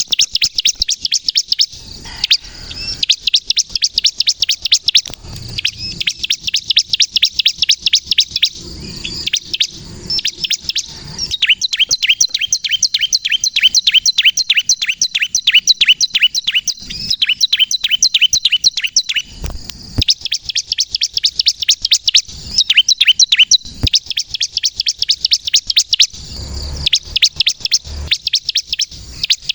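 Ciblek kristal (bar-winged prinia) singing in full voice: long runs of rapid, evenly repeated high chirps at about five or six a second, broken by short pauses every few seconds. It is the continuous song that keepers play to lure ciblek and to rouse other birds into singing.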